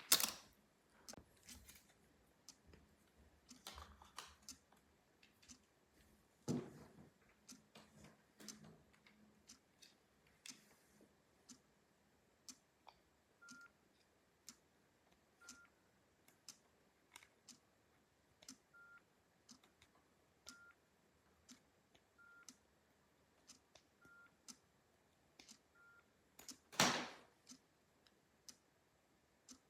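Nokia 6080 keypad being pressed: a run of soft key clicks, with short single-pitch key beeps about every two seconds in the second half. A louder knock comes at the very start and another near the end.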